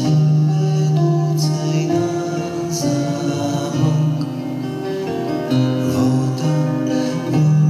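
Live acoustic guitar music with held low notes underneath that change every second or two, and a light accent about every second and a half.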